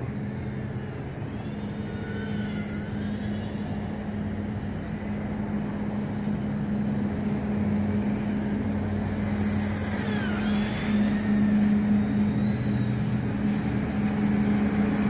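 FuriBee Q95 FPV racing quadcopter in flight, its brushless motors running over a steady low hum, with faint whines sliding up and down in pitch as the throttle changes.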